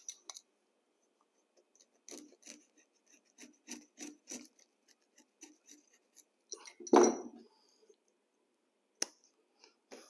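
Carpet knife cutting through the carpet's woven backing along a straight edge to make the seam: a run of short, scratchy strokes, then a louder knock about seven seconds in and a sharp click near the end.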